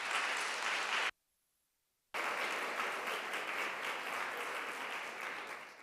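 Audience applauding. The clapping cuts off abruptly about a second in and there is a second of silence. Then it resumes just as suddenly and fades out near the end.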